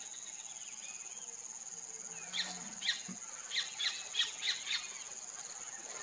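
White-fronted woodpecker giving a quick series of about seven short, sharp calls, roughly three a second, starting a little before halfway. Under it runs a steady high insect buzz.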